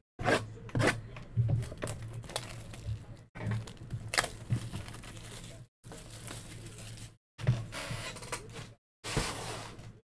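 Sealed trading card box being opened by hand: its shrink-wrap and seal tearing and crinkling, with sharp crackles and rustles of plastic and cardboard broken by brief pauses.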